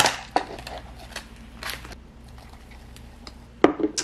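Handling of a paper cup-noodle container and its peeled lid: a few light crinkles and taps. Near the end, one loud knock as a bowl is set down on a tabletop.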